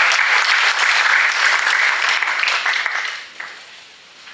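Audience applauding at the end of a talk, dying away a little over three seconds in.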